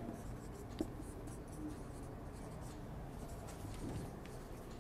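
Marker pen writing on a whiteboard: faint scratching strokes, with a small tap about a second in.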